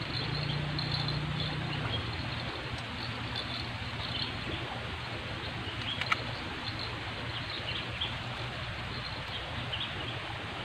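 Birds chirping over a steady outdoor hiss, with a low hum in the first two seconds and one sharp click about six seconds in.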